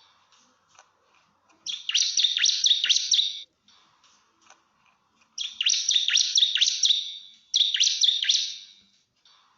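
Bar-winged prinia (ciblek) singing its rapid 'nembak' song, three bursts of fast, sharp chirps a second or two long with short pauses between. This is the challenge song used to call out a rival.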